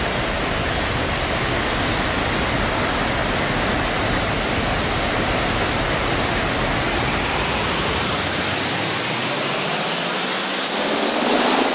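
Steady hiss of heavy rain falling, with a low rumble underneath that drops away about eight seconds in.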